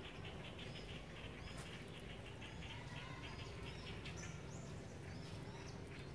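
Outdoor ambience: birds chirp now and then over a steady low rumble.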